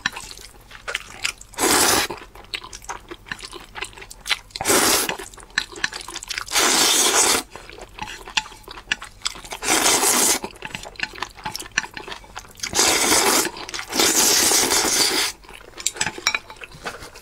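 A person loudly slurping spicy stir-fried instant noodles, about six long slurps with chewing and small chopstick clicks between them.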